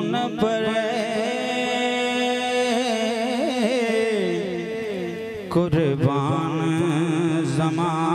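A man singing a naat into a microphone: long held wordless notes that bend and waver in pitch, over a steady low drone.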